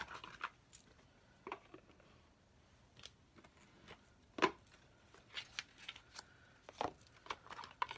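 Tarot cards and their cardboard box being handled and put away: scattered light clicks and taps, the loudest about four and a half seconds in.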